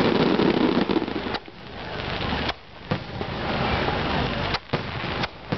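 Fireworks display: a dense crackling from a sky full of crackle stars, then several sharp bangs of shells bursting, with the sound cutting out briefly a few times.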